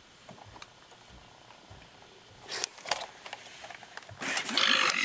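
Toy humanoid robot playing a recorded burp through its small speaker: a short burst about halfway, then a longer, louder one near the end.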